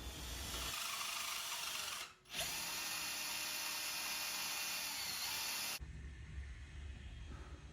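Power tool running in two stretches with an even, hissing whir: it stops for a moment about two seconds in, starts again and cuts off suddenly near six seconds.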